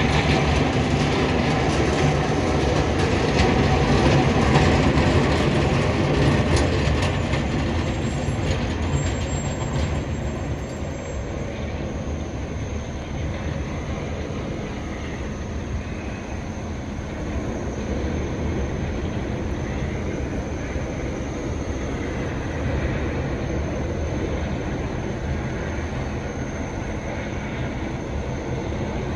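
City sanitation plow truck passing on a snow-covered street: a loud rumbling, rattling din that fades after about ten seconds into a steadier, lower road noise.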